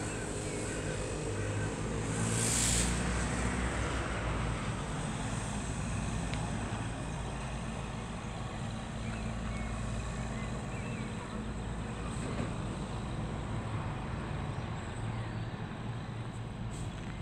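A steady, low, distant engine rumble, with a brief rushing burst about two and a half seconds in.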